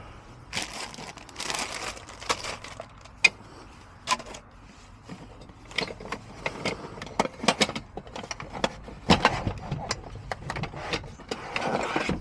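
Things being handled and unpacked: packaging rustles, with a scattering of sharp clicks and light knocks. There is a longer spell of rustling near the end.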